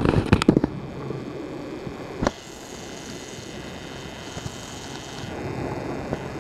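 Camera handling noise: a quick series of clicks and bumps as the camera is moved, and another sharp click a little after two seconds. Underneath is a steady low outdoor rumble with a faint high whine that stops a little after five seconds.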